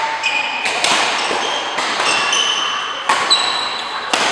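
Badminton rally: several sharp cracks of rackets striking a shuttlecock, with high-pitched sneaker squeaks on the court floor between the hits.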